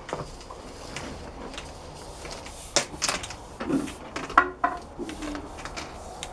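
Irregular knocks, scrapes and crunches of footsteps on loose concrete and block rubble, as an electric demolition hammer is set down against a block wall. The loudest knocks come about three seconds in and again a second and a half later.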